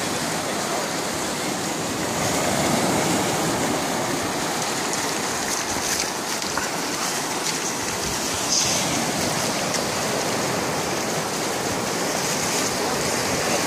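Ocean surf washing onto a sandy beach: a steady rush of breaking waves and foam, swelling slightly now and then.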